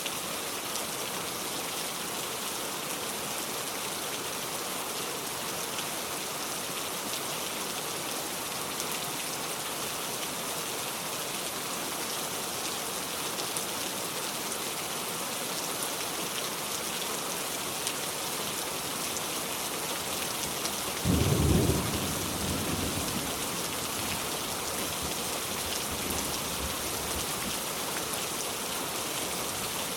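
Heavy rain falling in a steady hiss. About two-thirds of the way through comes a sudden loud crack of thunder, followed by a low rumble that fades over several seconds.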